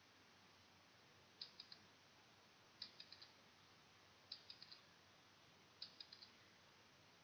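Quiz countdown-timer sound effect: four clusters of three or four quick, high clicks, one cluster about every second and a half, over faint hiss.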